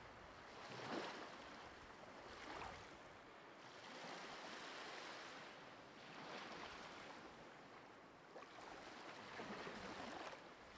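Faint ocean waves washing in, each surge swelling and fading every couple of seconds.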